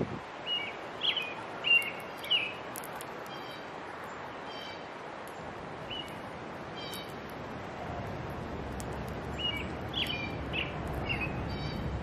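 Wild songbirds calling: a run of short, slurred whistled chirps near the start and again about ten seconds in, with a few brief nasal, buzzy calls between them.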